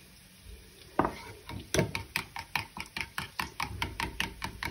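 Metal spoon stirring salted garlic yogurt in a white ceramic bowl, clinking against the bowl in a quick, even rhythm of about five taps a second. A single knock comes about a second in, and the steady clinking starts about half a second later.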